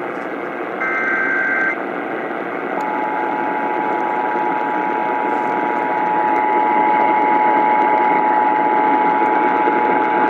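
Emergency Alert System signal heard over AM radio with steady static hiss: about a second in, a short data burst of two alternating high tones ends the SAME digital header, which codes a child abduction emergency. About two seconds later, the two-tone EAS attention signal starts and holds steadily.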